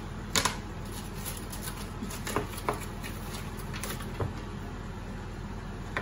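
Foil butter wrapper crinkling and rustling as a block of butter is unwrapped by hand, with a few short sharp crackles, over a steady low hum.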